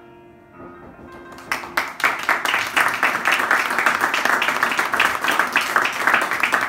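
Quiet background music, then about a second and a half in a small audience breaks into loud clapping that keeps going.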